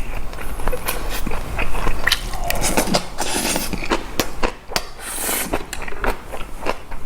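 Close-miked eating: a person chewing boiled pork bossam with fresh napa cabbage kimchi and rice, with many quick wet mouth clicks and smacks. There are two short hissing, slurping stretches, about three seconds in and again about five seconds in.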